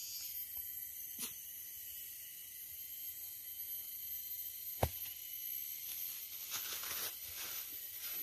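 Rainforest ambience: a steady high-pitched insect chorus, with a single sharp click a little under five seconds in.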